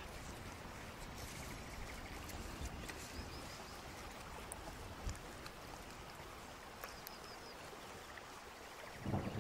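Gloved hands smearing thick marinade over a raw turkey: faint wet squishing with small scattered clicks. Near the end a louder low rumble of wind on the microphone comes in.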